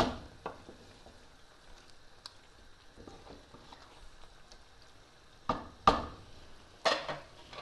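Wooden spoon stirring chicken curry in a steel pot: soft stirring with a few louder knocks and scrapes of the spoon against the pot, one at the start and several between about five and a half and seven seconds in.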